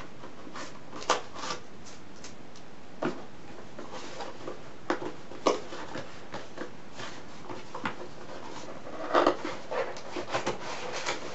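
Cardboard box being handled and opened by hand: scattered scrapes, taps and rubbing of the card, busiest near the end.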